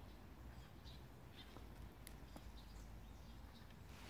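Near silence: faint outdoor background with a low hum and a few faint ticks.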